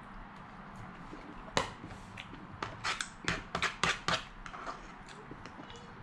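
A quick run of about ten sharp clicks and clinks from a metal fork knocking against a plastic plate and the tabletop while noodles are eaten and set down.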